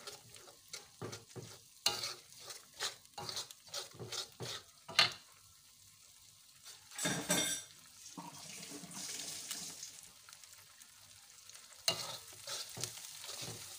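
Metal spatula scraping and stirring beaten egg and spice paste around an aluminium wok, with the egg sizzling as it fries. The quick strokes pause for a few seconds in the middle, leaving a steady sizzle, and start again near the end.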